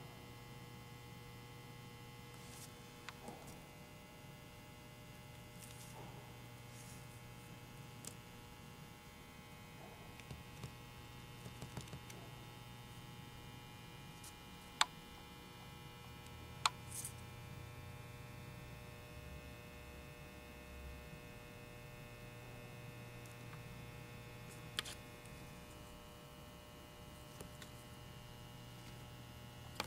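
Steady low electrical hum of room tone, with a few faint clicks, two sharper ones about halfway through.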